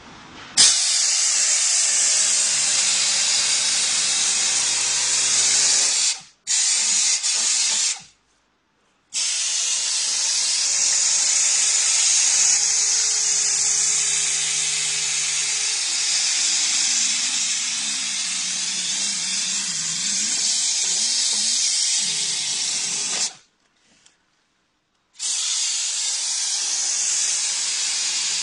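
Bonitec Handy Stripper Eco hand stripping tool running with a loud, steady hiss while it strips waste from a stack of die-cut cardboard sheets. The hiss stops sharply a few times and starts again after short gaps.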